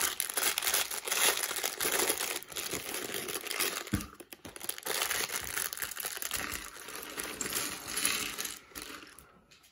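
Plastic parts bag crinkling while small plastic building bricks rattle and click against each other, with a single knock about four seconds in.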